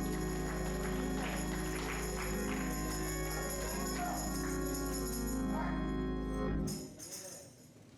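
Church music: voices singing over a held, sustained chord that stops abruptly about seven seconds in.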